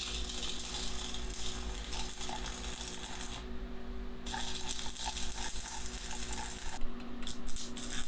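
Welding arc crackling in two runs of a few seconds each, a short gap between them, over a steady electrical hum; a few light clicks near the end.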